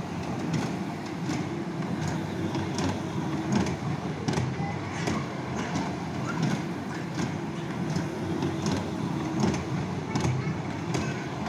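Small ride-on amusement toy train running around its circular track, a steady rumble with a regular click about twice a second.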